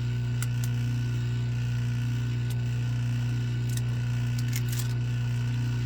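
A steady low hum throughout, with a few scattered clicks and scrapes as thick-insulated copper cable is worked through a wire stripper.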